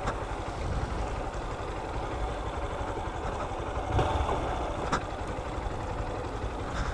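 Honda CG 160 Fan motorcycle's single-cylinder four-stroke engine running steadily at low speed on a dirt road. Two brief knocks come about four and five seconds in.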